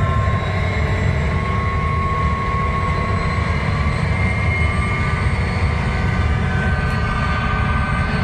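Steady low rumble of a moving vehicle, with faint thin whines that rise slowly in pitch.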